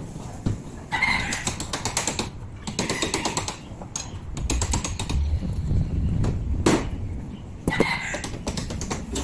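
Bursts of small clicks and knocks as fuel injectors and their fuel rail are pressed back into place by hand on a Suzuki K6A engine, with a chicken clucking twice in the background.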